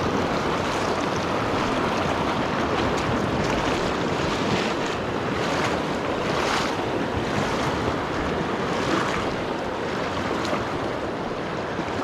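River current rushing steadily, the river running at about 1800 cfs, with a few faint brief splashy surges, the clearest about six and a half seconds in.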